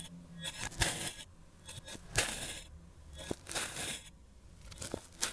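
Crinkle-cut stainless steel blade slicing down through a block of kinetic sand: a grainy crunch with each cut, several cuts about a second apart, most ending in a sharp tap as the blade meets the surface underneath.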